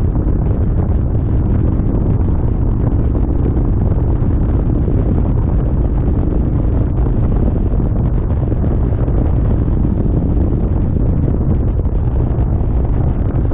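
Steady wind noise buffeting the microphone on a moving motorcycle, over the low running drone of an Indian Chieftain's V-twin engine at cruising speed.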